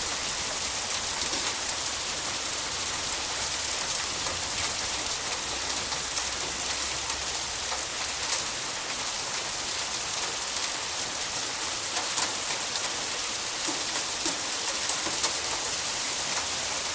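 Heavy rain falling steadily, a dense hiss with the patter of drops striking surfaces close by. A faint low rumble underneath dies away about eight seconds in.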